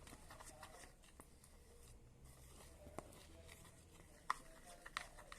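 Near silence: room tone with a few faint clicks and taps from hands working a bowl of glue-and-cornstarch slime.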